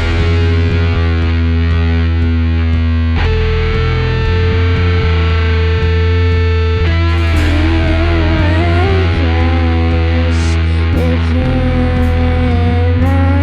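Live rock band playing loud, distorted electric guitar over a heavy bass. About three seconds in the chord changes to a long held note, and about halfway through a bending, wavering melody line comes in on top.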